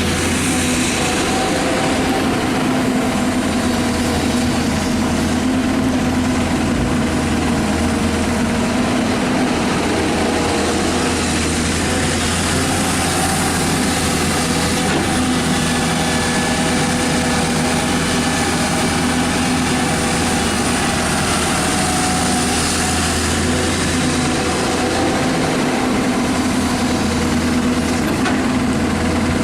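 Diesel engine of a Hyundai 220LC-9S excavator running steadily at an even speed.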